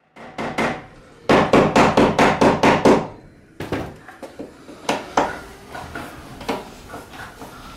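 Hand tool striking the wall: a few sharp knocks, then a fast loud run of about ten strikes, about six a second, followed by scattered lighter knocks and taps.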